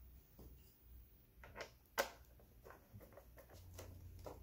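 Faint, scattered clicks and taps of small screws and a hand screwdriver on a plastic display mounting plate as the screws are driven in, the sharpest about two seconds in. A low hum comes in near the end.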